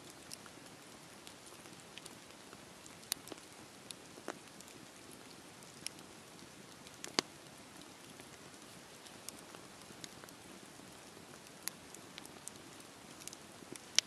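Wood fire burning: a soft, steady hiss with scattered sharp crackles and pops from the burning logs, the loudest pop about seven seconds in.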